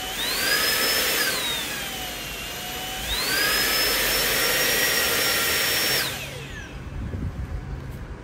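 Samsung Jet 90 cordless stick vacuum's motor running with a high whine and rush of air, its pitch rising and falling as the suction modes are switched, highest on maximum from about three seconds in. About six seconds in it is switched off and the whine winds down, leaving faint handling clicks.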